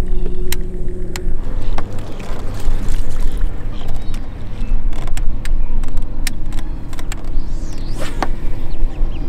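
Boat motor running steadily with a low rumble; its hum shifts pitch a little over a second in, and a few sharp clicks sound on top.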